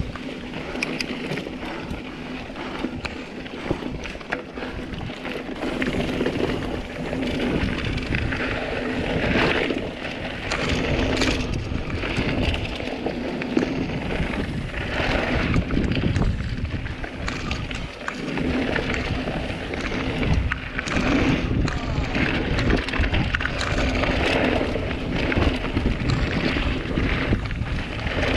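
Mountain bike riding down a dirt forest trail: steady rumble of knobby tyres over dirt and leaves, the bike rattling and knocking over bumps, and wind buffeting the camera microphone. The rumble grows louder after the first few seconds as speed picks up.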